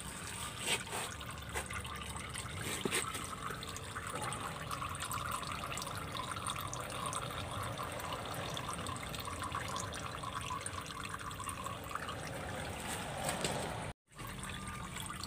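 Used gear oil trickling in a thin steady stream from a vehicle's drain hole into a metal drain pan of oil, with a few faint clicks in the first seconds. The sound cuts out briefly near the end.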